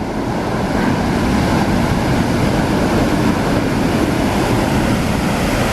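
Steady roar of Montmorency Falls heard close up, mixed with wind buffeting the microphone.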